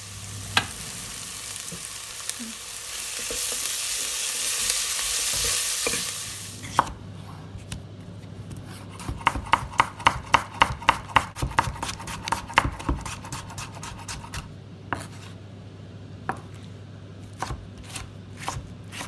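Chopped onions, garlic and ginger sizzling in hot oil in a pot, swelling for a few seconds and then stopping abruptly about seven seconds in. A run of quick knocks follows, about four a second for several seconds, then a few scattered knocks, over a steady low hum.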